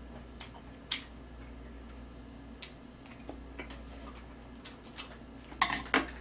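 Close-miked eating sounds: a person chewing a mouthful of rolled egg omelette, with scattered soft mouth clicks, smacks and chopstick taps. A short cluster of louder clicks comes near the end, over a faint steady hum.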